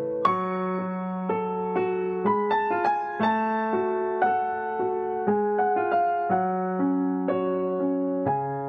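Background music: a slow, gentle electric piano melody over sustained bass notes, a new note sounding about every half second to a second.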